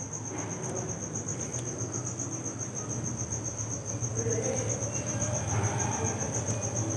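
An insect chirping steadily in a fast, even pulse, with faint handling sounds of a carbon-brush cap being fitted on an angle grinder. The handling gets a little louder about four seconds in.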